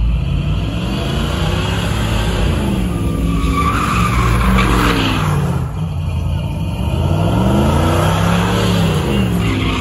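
Pickup truck doing burnout donuts: its engine revs up and down in repeated swells while the rear tyres spin and squeal on asphalt, the squeal loudest about a third to halfway through.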